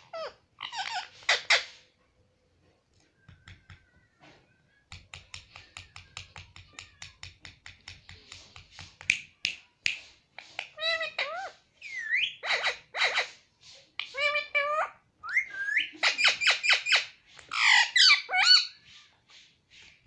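Indian ringneck parakeet making sounds: a fast run of clicks at about five a second from about five seconds in, then chattering, squawky calls that glide up and down in pitch through the second half, loudest near the end.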